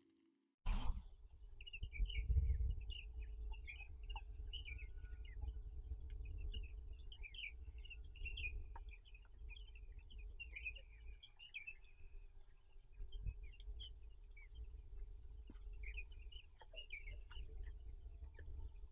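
An insect trilling in one steady high note, with birds chirping and twittering over it and a low rumble underneath; the trill fades about two-thirds of the way in.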